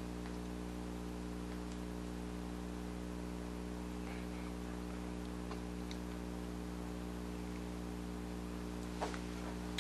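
Steady low electrical hum with several steady tones layered in it: the room tone of a small room. A light click comes near the end.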